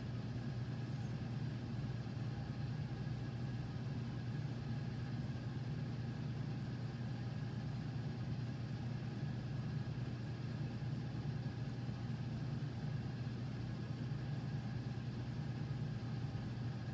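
Steady low machine hum, strongest in the low range, with faint steady tones above it and no change throughout.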